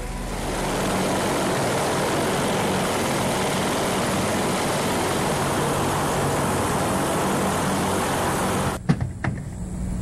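A steady, loud rushing noise that cuts off suddenly near the end, followed by a few sharp clicks and knocks.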